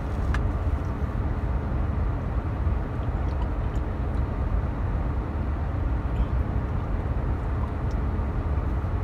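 Steady low rumble inside a parked car's cabin, the car's engine idling.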